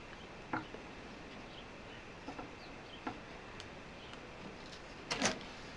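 A few faint clicks and taps of small objects being handled on a workbench, with a louder double click near the end.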